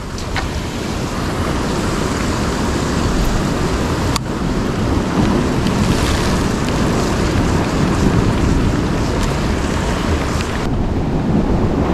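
Ocean surf surging and breaking against a rock ledge, heard as a steady rushing noise that builds over the first couple of seconds, with wind buffeting the microphone.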